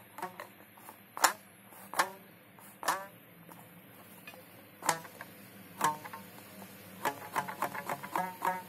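Homemade one-string bass being plucked: five single notes about a second apart, then a quicker run of several plucks a second near the end.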